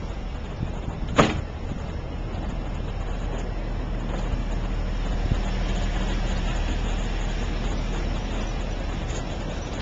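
Narrow-gauge passenger carriages rolling past on the track, a steady rumble that builds a little from about two seconds in. One sharp bang about a second in is the loudest moment.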